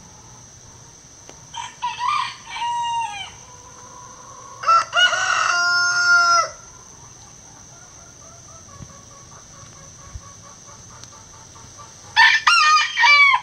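Gold Sebright bantam rooster crowing loudly, once about five seconds in and again near the end, with a fainter crow about two seconds in.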